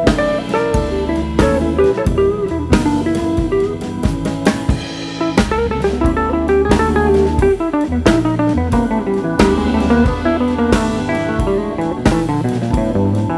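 Background music: a guitar-led instrumental with a drum kit keeping a steady beat.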